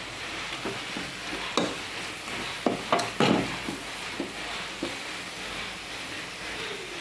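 Metal spoon scraping and knocking against an aluminium kadai as a capsicum and egg fry is stirred, the loudest strokes coming about halfway through, over a steady hiss of the food frying.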